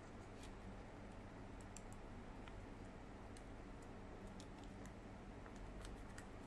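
Faint, irregular crisp ticks of origami paper being pressed and creased by fingers, over a steady low hiss and hum.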